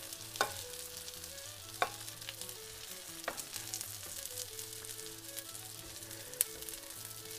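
Butter and olive oil sizzling steadily around pan-seared bass fillets in a skillet. A few sharp clicks come as a slotted spatula scrapes under the fillets to lift them out.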